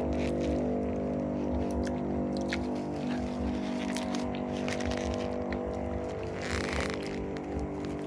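A steady, engine-like hum runs throughout. Over it come scattered small clicks and a brief crinkle near the end, as the plastic bag holding the durian is handled while he eats.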